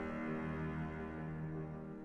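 Slow, soft chamber music: a cello bowing low sustained notes with quiet piano chords, easing gently in loudness.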